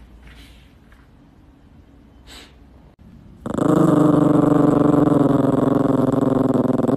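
Yorkshire terrier growling into a floor vent: one long, unbroken, steady growl that starts about three and a half seconds in.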